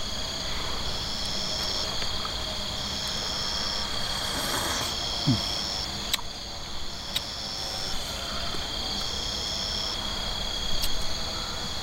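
Insect chorus, crickets or similar: one insect trills steadily at a high pitch while another sings in regular pulses about once a second. A brief rustle near the middle and a single click break in.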